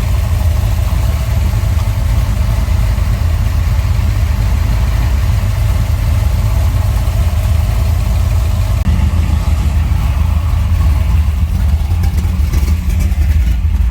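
Chevrolet 383 cubic-inch stroker V8 with a Flowmaster exhaust idling steadily, with a deep, loud exhaust note.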